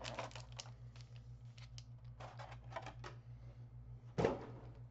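Scattered runs of light clicks and taps from handling the cardboard box and Pokémon card packs, with one short louder sound about four seconds in. A steady low electrical hum sits under it.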